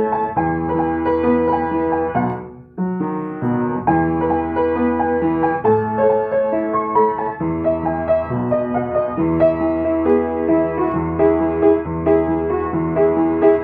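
Piano playing a gentle melody over chords, with a brief break about two and a half seconds in before the playing resumes.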